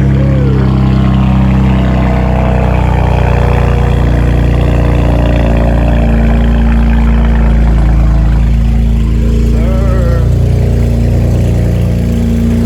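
BMW 335i's N54 twin-turbo straight-six idling steadily just after a cold start, running loud while it warms up on fresh oil.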